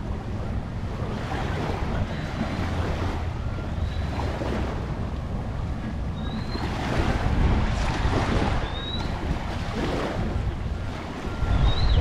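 Waves washing on a beach, with wind buffeting the microphone. Surges of surf come about halfway through and again near the end, and a few short high chirps recur every second or two.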